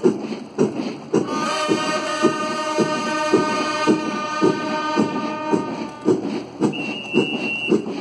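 Military band playing a march outdoors: a steady drum beat about twice a second under long held brass chords, with a single high held trumpet note near the end.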